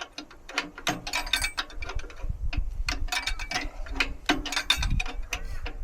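Ratchet spanner clicking through repeated strokes as the mini skid steer's track idler adjuster is wound out to tension the track.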